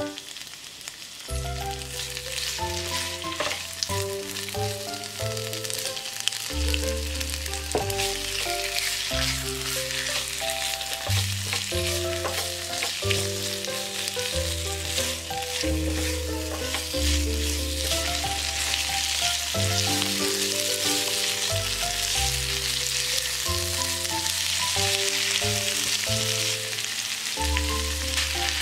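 Vegetables and shrimp sizzling in a hot frying pan as they are stir-fried and turned with a spatula, over background music with a melody and bass line.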